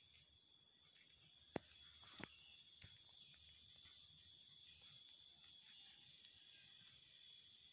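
Faint, steady high-pitched chirring of night insects, with a few sharp clicks between about one and a half and three seconds in.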